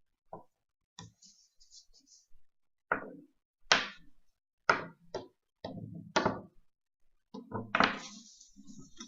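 A series of irregular knocks and thumps, about a dozen sharp hits spread unevenly over several seconds, with a short hissy scrape near the end.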